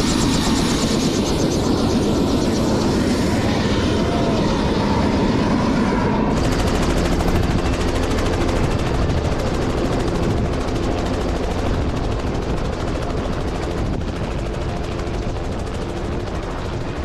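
Helicopter's turbine engine and rotor running close by, a loud steady noise with a fine rapid blade chop. About six seconds in, the sound turns suddenly sharper and brighter.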